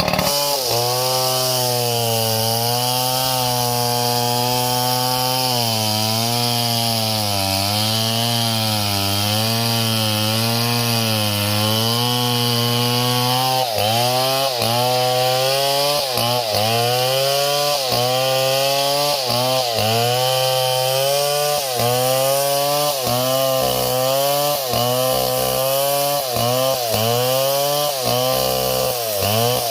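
Small chainsaw running at high throttle while cutting wood, with the rasp of the chain over the engine note. In the second half the engine pitch sags and recovers about once a second as the saw bites under load.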